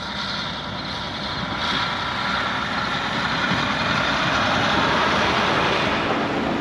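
Combine harvester running steadily as it picks seed corn, its engine and machinery making a continuous noise that grows slightly louder over the first few seconds.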